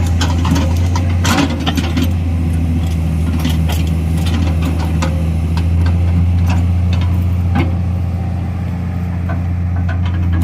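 Excavator diesel engine running steadily at a low, even speed, with scattered short sharp clicks and knocks over it.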